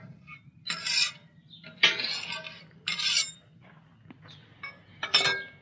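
Four short scraping, clattering noises, the last with a brief metallic ring.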